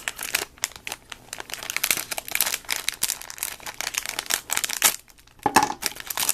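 Plastic packaging crinkling and rustling as it is handled and opened, with a brief pause a little after five seconds.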